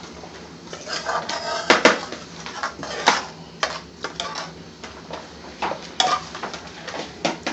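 Kitchen clatter of metal utensils and pans: an irregular string of sharp clinks and knocks, with two louder knocks about two and three seconds in.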